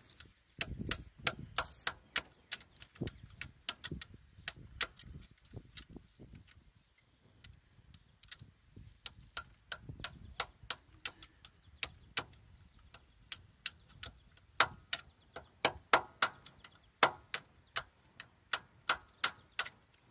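Hammer tapping a steel punch held on a carburetor mixture-screw cap: a long run of sharp metal-on-metal taps, about two or three a second, with a short lull in the middle and harder taps in the second half. The blows are meant to knock the cap out, but they are driving it further in.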